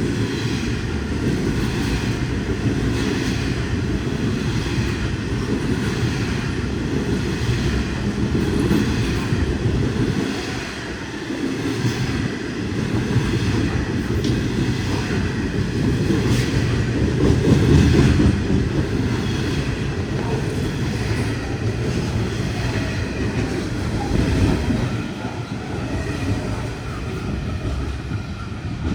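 Long freight train running past: a steady heavy rumble with repeated clicking of wheels over the rails, loudest a little past the middle.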